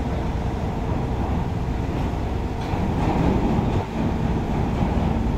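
Heavy diesel engine running steadily: a deep, even rumble with a faint steady whine over it that drops lower about three seconds in.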